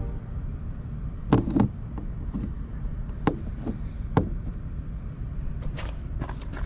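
Several scattered knocks and clicks, two close together about a second and a half in, over a steady low rumble.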